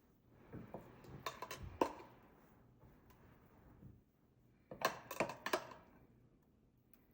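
Metal idli plates and kitchen utensils clinking and scraping as batter is spooned into the plate's moulds, in two short clusters: one about a second in and one about five seconds in.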